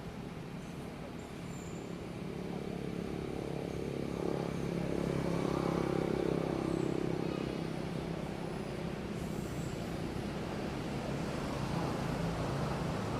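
A motor vehicle engine running with a steady hum. It grows louder to a peak about six seconds in, then fades somewhat.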